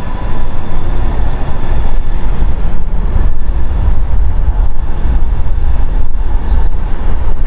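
Loud, steady low rumbling noise that flutters in level and never breaks off, with a fainter hiss above it.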